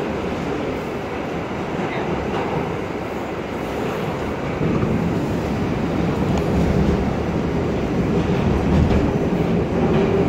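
R68 subway train running through a tunnel, heard from inside the car: a steady rumble of wheels on the rails with some clicking over the rail joints, growing louder about four and a half seconds in.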